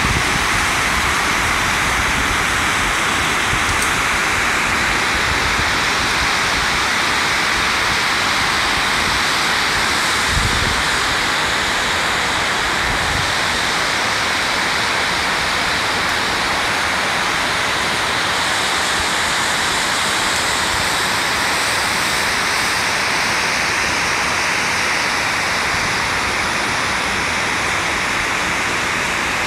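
Large waterfall plunging steeply over rock: a steady, loud rush of falling white water.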